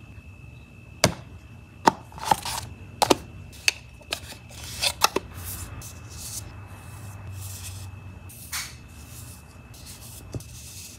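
Photocards being handled and slid into thin clear plastic sleeves: a run of sharp taps and short crinkly plastic rustles in the first half, then softer rustling with a couple of single taps.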